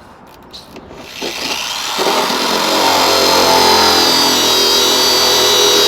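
Drill turning a 1¼-inch hole saw, starting about two seconds in and cutting steadily through the plastic wall of a food-grade drum to enlarge a 1-inch hole, with a steady whine.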